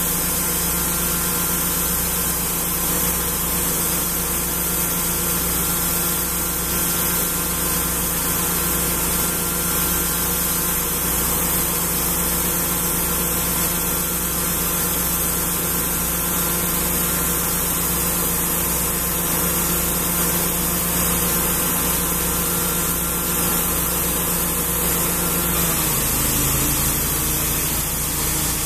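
Gas engine of a Wood-Mizer band resaw running steadily, with a high hiss from the band blade, while poplar boards are resawn. Near the end the engine's pitch drops and settles lower.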